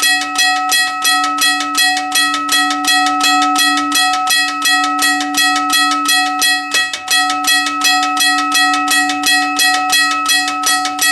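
Union Switch & Signal teardrop railroad crossing bell ringing, its clapper striking the gong in a rapid, even rhythm with the ring carrying on between strokes. The rhythm falters once about two-thirds of the way through: one of the bell's occasional missed beats.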